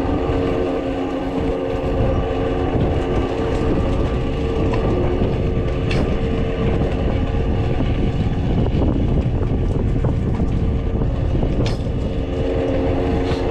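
Farm machinery running steadily: a low rumble under a constant hum, with a couple of sharp clicks.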